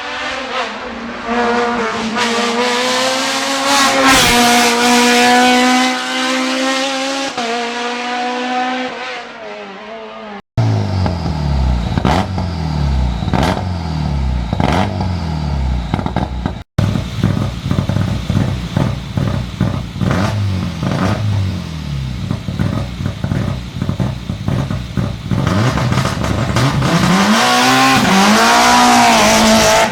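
Hill-climb race car engines at full throttle, revving high and shifting through the gears, in several short clips joined by abrupt cuts. Near the end a car passes close by, its engine pitch rising and then falling.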